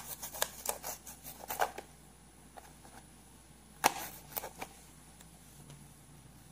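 Kitchen knife slicing a green bell pepper into strips on a plastic cutting board, the blade tapping the board with each cut: a quick run of taps in the first couple of seconds, then a sharper knock about four seconds in followed by a few lighter taps.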